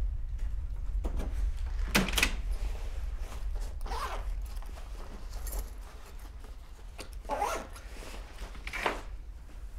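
Jacket being handled and unzipped: a handful of short zipping and rustling strokes spread through the moment, over a low steady hum.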